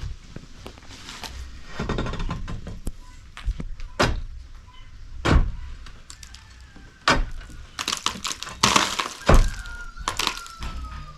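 Irregular knocks and thuds, several of them sharp and loud, over low rumble, with a faint falling squeak near the end.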